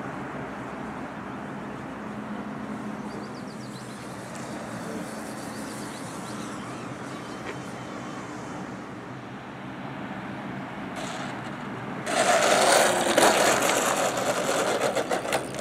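RC aerobatic model plane's motor droning steadily in flight. About twelve seconds in, a much louder rough rushing noise takes over as the plane comes in on the asphalt runway close by.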